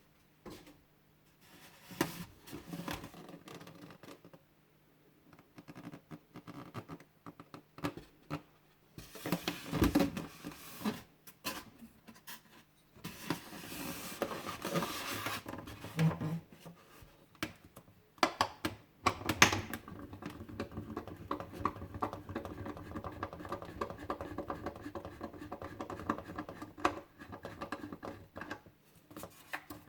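Hands unpacking a boxed 1:18 scale diecast model car: irregular scratching, rustling and clicking of cardboard and plastic packaging being handled, over a faint steady hum.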